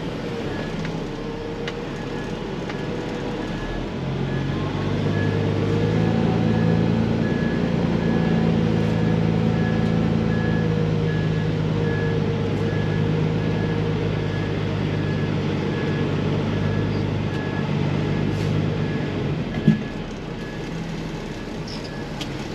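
A truck's Cat C15 diesel running, its revs raised and held for about fifteen seconds before dropping back, with a steady repeating electronic beep throughout. A short knock comes near the end.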